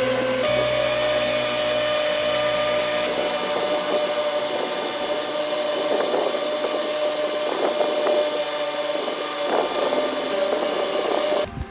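Electric power tool motor running steadily with a constant whine that steps up slightly about half a second in, with uneven rasping as it works the wood, then stops abruptly near the end.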